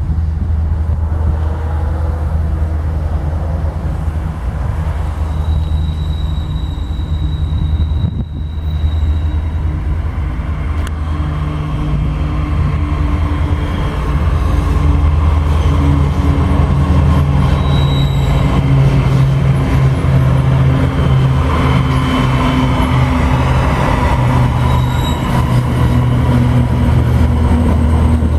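Freight train hauled by diesel-electric locomotives, a GE ES44 leading with EMD SD40-2s behind, approaching and passing close by. The engines give a steady low drone that grows louder about halfway through as the units come alongside.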